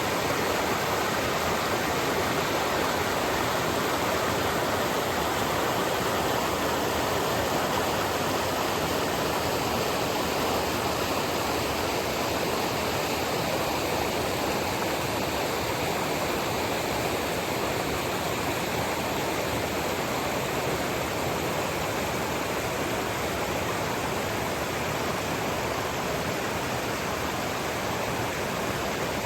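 A stream rushing steadily, a dense, even sound of moving water without breaks.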